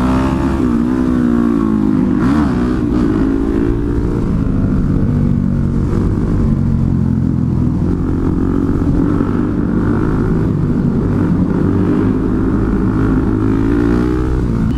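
Suzuki DR-Z400SM supermoto's single-cylinder four-stroke engine under the rider, close up, pulling through the gears with its pitch rising and falling in the first few seconds, then held on the throttle more steadily through a wheelie.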